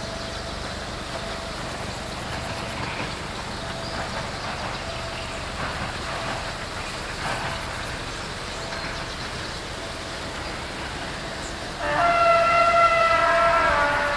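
Air horn of a CFR class 060-DA diesel-electric locomotive sounding one long blast of several tones together, about two seconds, near the end. Before it there is only a steady background rush and the distant train.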